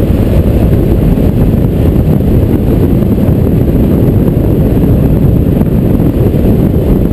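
Wind rumbling on the microphone of a camera mounted on a motorcycle riding at highway speed, mixed with the motorcycle running; a loud, steady low rumble throughout.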